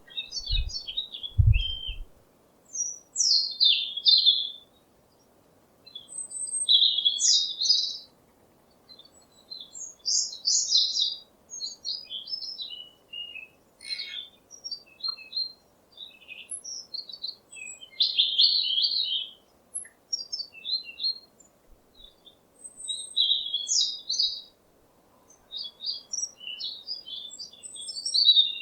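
Songbirds chirping in short, high-pitched phrases of quick notes, one after another with brief pauses between them. A few low bumps come in the first two seconds.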